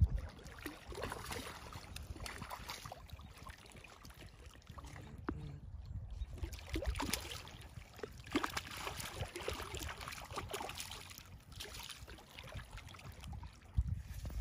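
Lake water lapping and trickling in small irregular splashes, with wind rumble on the microphone.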